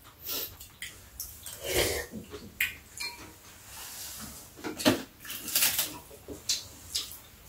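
Metal spoons and chopsticks clinking and scraping against bowls in scattered, irregular clicks as two people eat.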